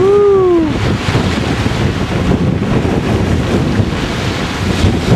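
Heavy storm surf, driven by a hurricane storm surge on a near-peak tide, breaking and rushing up a cobble beach, with strong wind buffeting the microphone.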